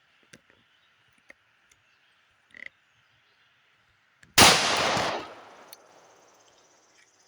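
A single shot from a Tisas M1911 .45 ACP pistol about four seconds in, loud for under a second as the round bursts a water jug, then trailing off. Crickets chirr faintly throughout.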